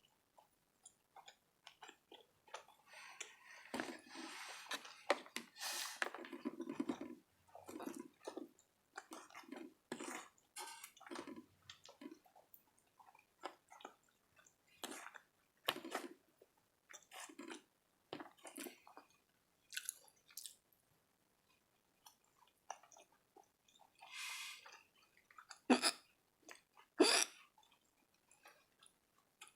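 Close-miked chewing and wet mouth sounds of a person eating, with many small clicks and smacks. Two sharper, louder sounds come near the end.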